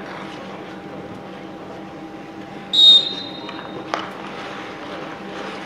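A short, shrill whistle blast about a second long, most likely the referee's whistle, sounds near the middle over a steady low mechanical hum. A single sharp knock follows a moment later.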